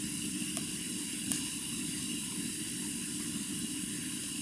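Steady background hiss with a faint low hum, and two faint clicks about half a second and a second and a half in.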